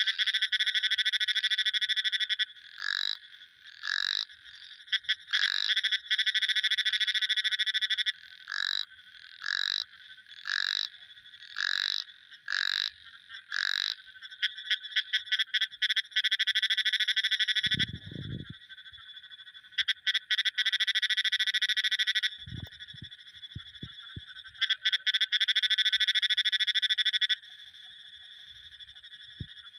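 Frogs calling: long, high, pulsing trills, broken for a stretch into short single calls about once a second, then long trills again. A brief low thud sounds about two-thirds of the way through.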